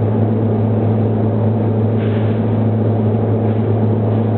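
Inverted vertical wire drawing machine running, its motor and gear reduction box giving a loud, steady low hum.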